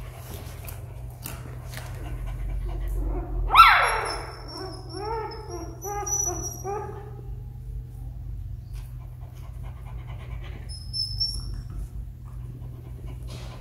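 Young puppy giving one sharp, loud yelp that falls in pitch about three and a half seconds in, followed by a run of short whimpering cries over the next few seconds.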